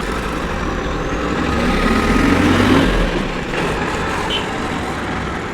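A motor vehicle's engine and road noise, growing louder to a peak a little past halfway and then easing off.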